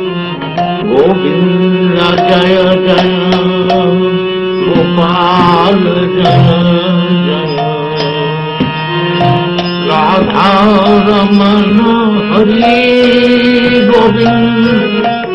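Indian classical-style devotional music: a steady drone under a melody with wavering ornaments, with scattered light drum strokes.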